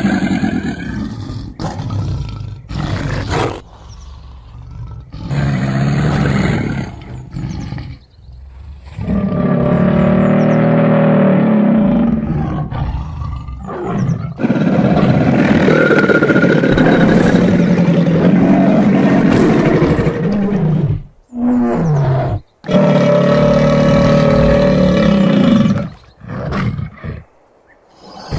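A series of roars and growls made as the voice of the extinct gorgonopsid Inostrancevia alexandri. Several short calls, some with a hissing edge, come first. From about eight seconds in, long deep roars of five or six seconds each follow with short breaks between them.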